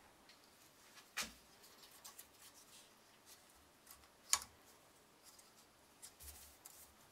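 Scattered light clicks and taps of hand tools on metal as water-pump pliers and a steel plate are handled at a bench vise. The sharpest click comes about four seconds in, with another a little after one second.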